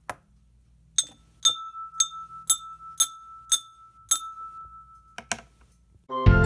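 A 250 ml glass laboratory beaker tapped with a brush about twice a second, each tap a bright clink that rings on. A quick double tap comes near the end, then music starts just before the close.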